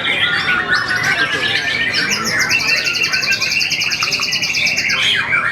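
Caged songbirds singing together in a dense chorus of overlapping chirps and whistles. From about two seconds in to about five seconds in, one bird sings a very fast, high, even trill over the rest.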